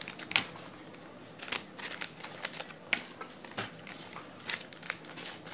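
Trading cards being handled, with irregular light clicks and rustles of card against card.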